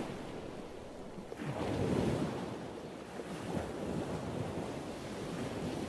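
Ocean surf: waves crashing and washing in as a steady rushing, one swelling up about a second and a half in.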